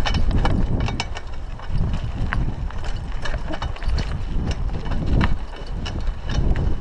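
Raleigh Ascent mountain bike rattling and clicking over a rough dirt road, with many irregular sharp ticks and knocks, under a steady rumble of wind on the chest-mounted camera's microphone.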